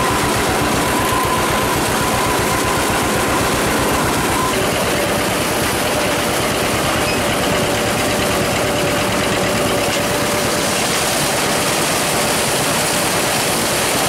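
Old John Deere two-cylinder tractor engine running steadily under load, pulling a working corn picker through standing corn, in an even rapid pulsing beat. A faint whine from the machinery drops in pitch about four and a half seconds in.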